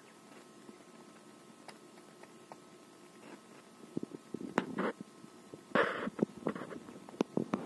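Quiet steady hum, then from about halfway a run of light taps, scratches and rustles on cardboard and hay in a quail box, with a louder rustle about two seconds from the end.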